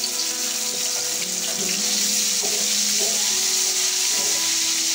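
Ginger-garlic paste sizzling hard in hot oil with browned onions: a loud, steady frying hiss that builds a little over the first couple of seconds and then holds.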